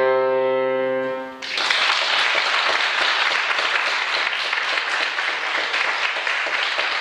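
Grand piano's final chord ringing out and dying away, then audience applause breaking out about a second and a half in and continuing steadily.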